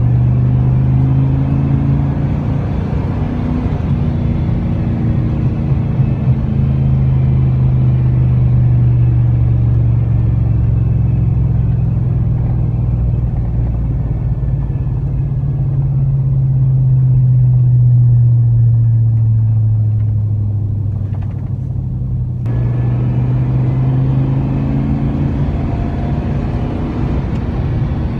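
1999 Chevrolet Silverado's 5.3L LM7 V8 running through a Cherry Bomb muffler, heard inside the cab while driving: a steady low exhaust drone. The drone swells a little around the middle and then eases off. About three quarters of the way through, the higher sound drops out for a couple of seconds before the drone picks back up.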